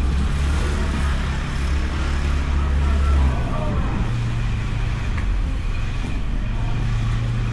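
Honda Beat scooter's small single-cylinder engine running, heard close from an action camera mounted on the scooter; its low hum steps up in pitch about three seconds in.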